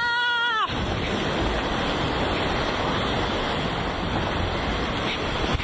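Gale-force wind of about 35 knots and breaking seas rushing around a sailing yacht, with heavy wind buffeting on the microphone. A short high steady tone sounds in the first half second before the rush of wind and water takes over.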